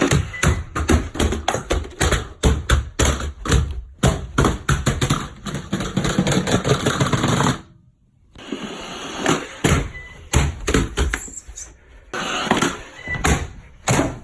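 Roomba robot vacuum knocking and clattering against hard surfaces in a rapid, irregular run of impacts, broken by a brief silence a little past the middle.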